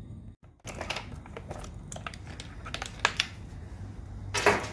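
Old motorcycle quick-shifter wiring loom being pulled by hand out of a taped wiring harness: a run of short crackles and rustles of wires and electrical tape, with a louder rustle near the end.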